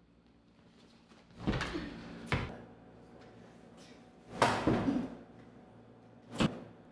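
Four sharp impacts of kung fu strikes or stamps: about a second and a half in, just after two seconds, about four and a half seconds in, and near the end. The first and third come with a short swish just before them, over a steady low room hum.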